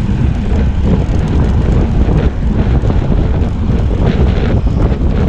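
Steady wind buffeting on an action camera's microphone from riding a road bike at speed, a loud low rumble.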